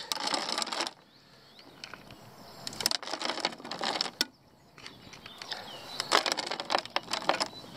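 Handfuls of bait pellets dropped into a bait boat's plastic hopper, rattling and pattering in three short spells with brief pauses between.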